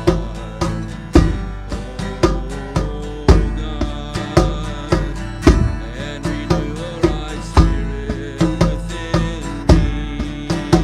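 Instrumental music: guitar strummed over a steady beat of sharp strikes, with no singing.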